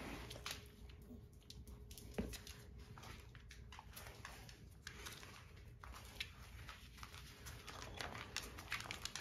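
Faint scuffing and light clicks of small dogs moving on a wooden floor while a suede slipper is pushed about and mouthed, with one sharper click about two seconds in.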